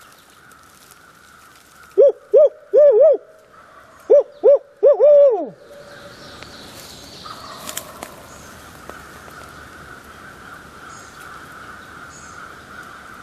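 Barred owl 'who cooks for you, who cooks for you-all' hooting, made by a hunter as a locator call: two loud phrases of four hoots each, the last note drawn out and sliding down in pitch.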